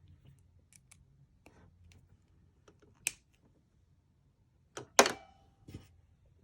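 Headphones and their packaging being handled: scattered small clicks and taps, a sharp click about three seconds in, and a louder knock about five seconds in that rings briefly.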